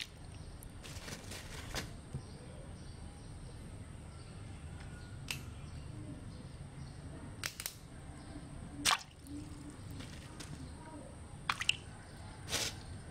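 Occasional drips and small splashes of water in a metal basin of soaking vegetables, a few short sharp plinks over a low steady background noise.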